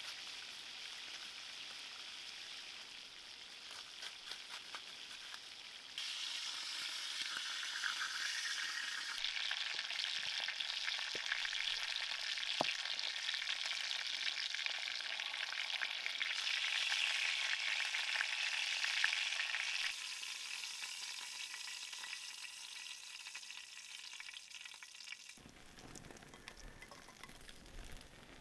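Food frying in a pan, a steady sizzle with fine crackling that grows louder about six seconds in and drops back about twenty seconds in.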